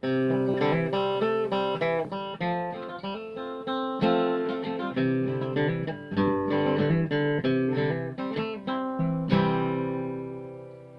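Acoustic guitar music: a quick run of picked notes, ending on a chord a little after nine seconds in that rings out and fades.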